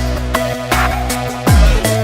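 Electronic music with a heavy beat: deep bass hits that drop in pitch, snare cracks and sustained synth chords.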